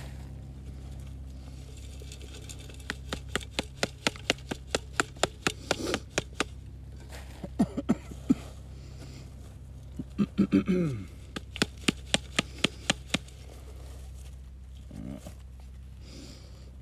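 Trapper's mesh dirt sifter shaken over a trap bed, knocking and rattling in quick, even clicks about three or four a second for several seconds, to sift fine dirt over the trap. A few short pitched sounds come in between, one falling in pitch near the middle.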